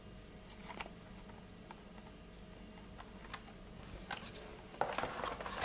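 Hard plastic fishing-line spools in clear plastic packs being handled: scattered light clicks and taps, turning into a busier crinkly rustle near the end.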